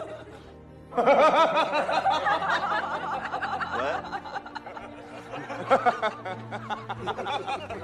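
A man laughing, a long rippling laugh that starts about a second in and tails off, over background music.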